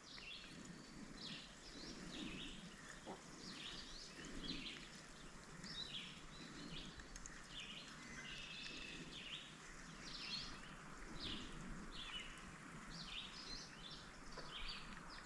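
Faint bird calls: short, high chirps repeating at irregular intervals over quiet outdoor background noise.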